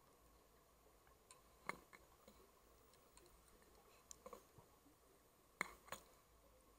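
Near silence underwater, broken by a handful of faint, sharp clicks and ticks, the loudest about two-thirds of the way through, over a faint steady hum.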